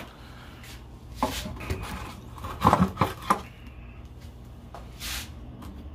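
A few sharp knocks and clatters of hard objects being handled and set down, loudest in a quick cluster about three seconds in, then a brief swish near the end.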